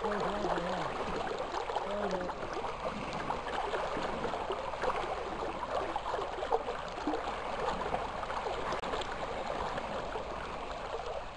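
Flowing river water, a steady rushing with fine babbling and rippling throughout.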